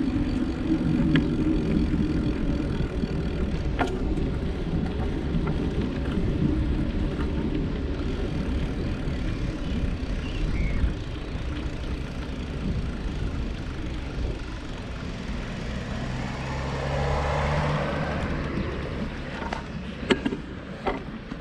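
Wind rumble and road noise from riding a bicycle, with passing motor traffic. There is a louder stretch in the second half and a few light clicks near the end.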